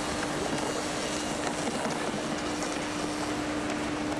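A steady, even, machine-like rumble and hiss with a constant low hum running through it.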